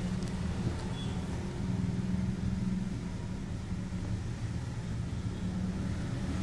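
A steady low rumble, with a couple of faint light clicks in the first second.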